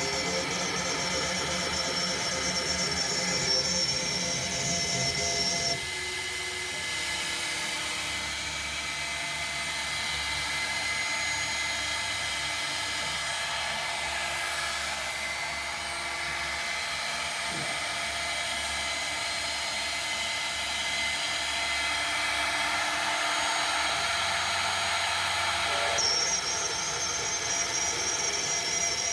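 Spindle of a 5 Prime 5050-20 five-axis CNC router milling a screw thread around a rotating dowel with a 1/8-inch bit cut 1/4 inch deep: a steady, drill-like high whine with cutting noise. The tone changes about six seconds in and again near the end.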